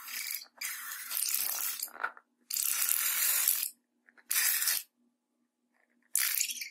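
Scissors cutting through a slime-filled rubber balloon: five separate cuts, each half a second to a second and a half long, with short silences between.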